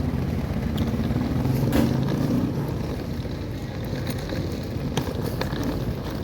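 Steady low engine hum of a vehicle, with a few small clicks and knocks.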